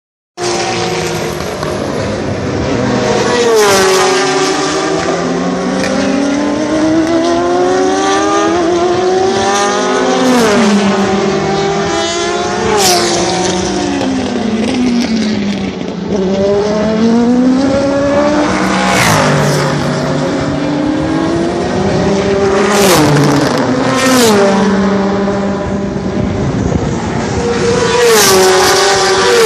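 Endurance race cars, sports prototypes and GT cars, passing one after another at speed, their engine notes climbing through the gears and dropping as each car goes by, with several loud close passes. Near the end a Ferrari 458 GTE's V8 passes close at full throttle, the loudest moment.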